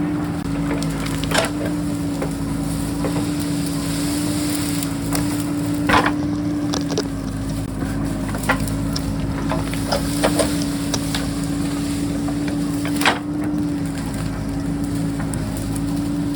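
JCB backhoe's diesel engine running at a steady pitch while its bucket digs into rocky ground, with sharp cracks and crunches of rock breaking and scraping, the loudest about six and thirteen seconds in.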